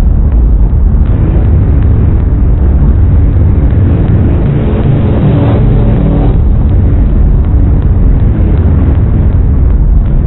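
A saw sound effect processed with a flanger and layered into chords: a loud, dense, rumbling drone with pitched chord tones, which turns brighter for a couple of seconds in the middle.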